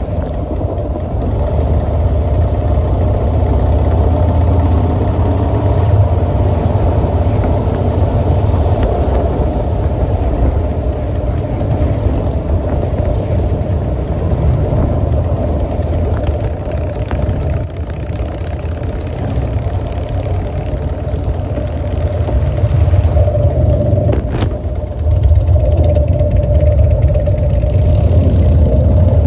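Motorcycle riding at road speed in a group of Harley-Davidson touring bikes: a steady low engine drone mixed with wind and road noise. It dips briefly with a click a few seconds before the end, then picks up a little louder.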